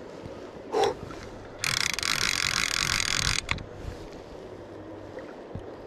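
Fly reel's click-and-pawl drag screaming as a hooked Atlantic salmon runs and pulls line off, starting about a second and a half in and stopping abruptly after nearly two seconds. A brief sound comes just before it.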